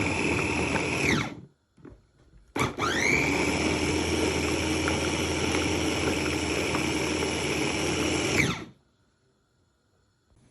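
Electric 5-litre food chopper's motor and blades whirring as they chop onion and ginger. The whir winds down about a second in, starts again after a short pause with a rising whine, runs about six seconds, then cuts off.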